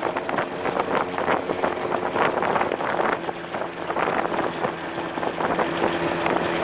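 Engine of a small open-top GoCar running steadily while driving in city traffic, with wind noise fluttering on the microphone.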